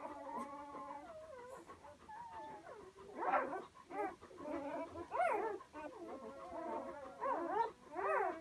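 Day-old komondor puppies whimpering and squeaking: several thin, overlapping calls that slide up and down in pitch, getting louder and shorter from about three seconds in.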